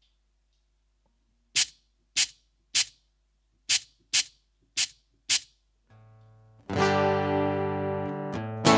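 A Finhol Stompcon foot percussion pedal struck seven times, each a short sharp hit. Near the end a guitar chord is strummed over a deep low tone.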